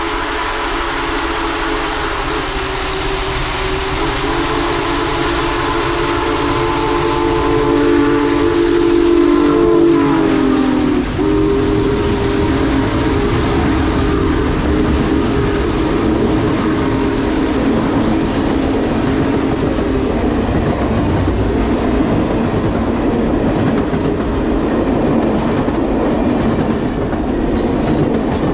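Union Pacific 4014 "Big Boy" steam locomotive passing close by with its chime whistle blowing. The whistle's pitch drops as the engine goes past about ten seconds in. Then the diesel unit and passenger cars rumble by, wheels clicking over the rail joints.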